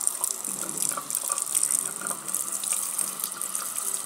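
Water running steadily from a tap, a constant hiss of flowing water.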